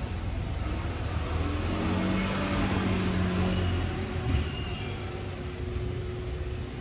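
Motor vehicle engine running with a steady low rumble that swells around two to three seconds in and then eases off, with one short knock about four seconds in.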